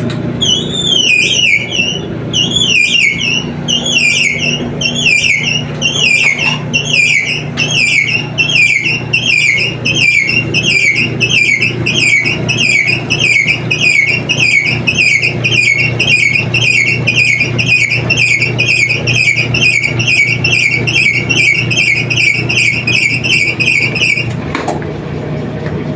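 Frigidaire/Electrolux washing machine's worn drive belt squealing as it slips on the motor pulley during the spin cycle. The squeal is high and comes in a regular chirp, getting faster as the drum picks up speed, over the steady hum of the motor and drum. It stops shortly before the end. The slipping is the sign of a belt worn thin.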